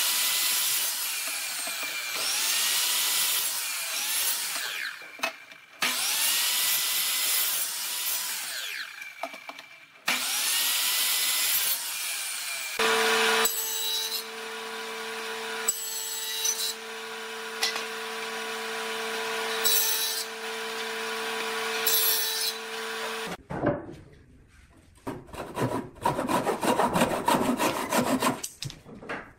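A sliding miter saw cuts through short wood strips several times, its blade whine rising and falling between cuts. About halfway through, a table saw runs with a steady hum and makes a few cuts in a board. Near the end, a handsaw is drawn back and forth through a clamped wooden board in quick strokes.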